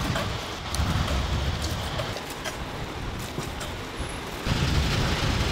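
City traffic noise: a steady low rumble of passing vehicles, getting louder about four and a half seconds in.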